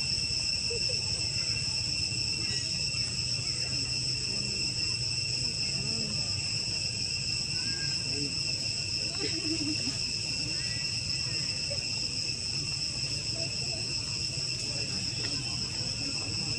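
Steady insect chorus in the surrounding forest: an unbroken high buzzing at several pitches that holds level throughout, over a low background rumble.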